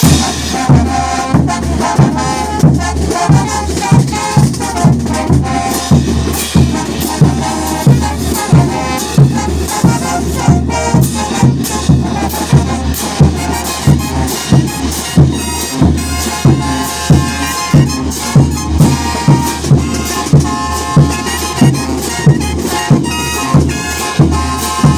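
Bolivian brass band playing: trumpets and trombones over a steady bass-drum beat about twice a second.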